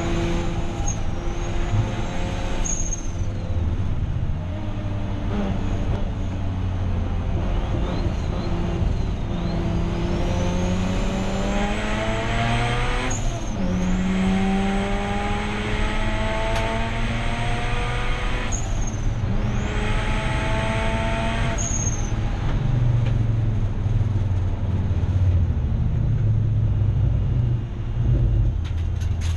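Turbocharged 13B rotary engine of a Mazda RX8 race car accelerating hard: the note climbs steadily and drops sharply at each upshift, several times over, then runs at lower, uneven revs for the last several seconds.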